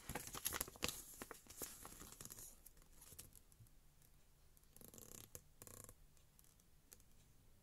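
Paper instruction leaflet rustling and crinkling as it is unfolded and handled, densest in the first two or three seconds, then a few softer rustles.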